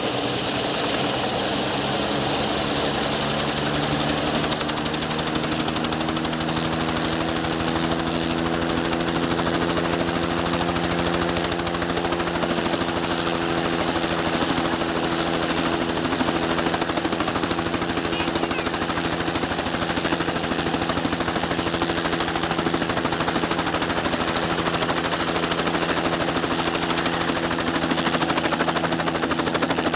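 Light two-bladed helicopter running on the ground as its rotor speeds up for takeoff: a fast, even chop of the rotor blades over a high steady whine, the engine tone rising over the first ten seconds or so and then holding steady, getting a little louder near the end.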